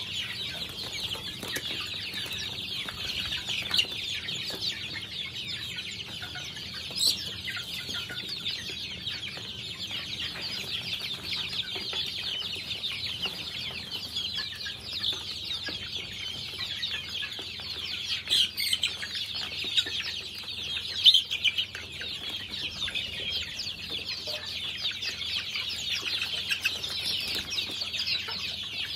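A flock of young chickens peeping and cheeping nonstop while they feed, a dense, high-pitched chatter. A few brief louder sounds stand out now and then.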